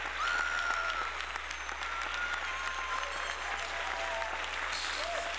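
A studio audience applauding steadily, with cheers and whistles over the clapping.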